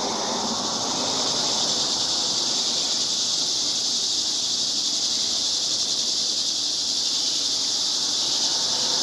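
A steady, high-pitched hiss from a chorus of insects, unbroken and even throughout.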